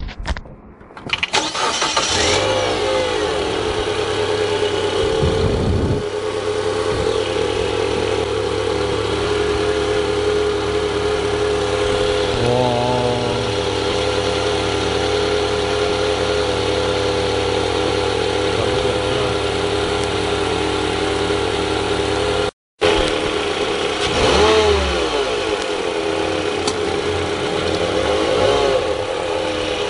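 Mitsubishi Outlander 2.4 L 4B12 four-cylinder engine starting about a second in, then idling steadily with the abnormal noise of a worn alternator one-way clutch pulley. After a brief dropout about three-quarters of the way through, the engine speed rises and falls a couple of times.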